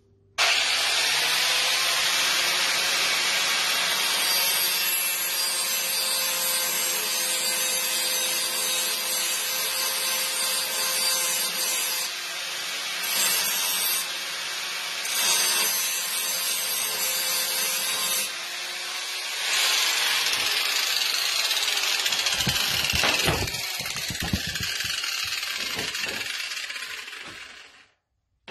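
Corded angle grinder running steadily and grinding down a dented spot on a router's base plate, so that this reference surface sits flat. The grinding gets louder and harsher for a few stretches as the disc bites, and several low knocks come near the end before it cuts off.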